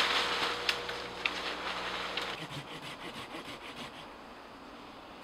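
A Silky folding saw cutting green saplings close to the ground: a run of quick rasping strokes with a few sharp clicks. The sound grows fainter toward the end.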